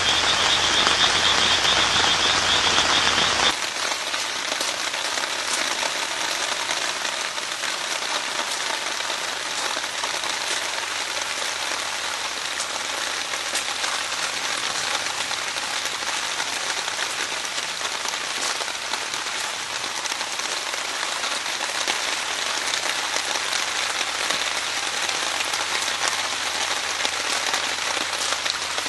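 Steady rain pattering, with scattered drop ticks. For the first few seconds a frog calls in a rapid pulsing trill over heavier rain, then the sound cuts abruptly to steadier, slightly quieter rain.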